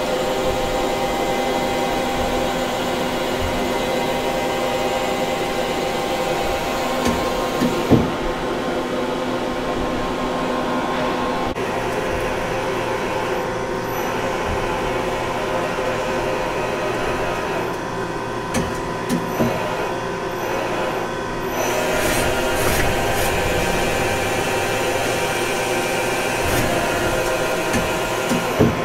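Hitachi Seiki TS-15 CNC turning center running its program: a steady machine hum with several held whining tones. A few sharp knocks come about eight seconds in and again about two-thirds of the way through, and the sound turns brighter and busier about three-quarters of the way through.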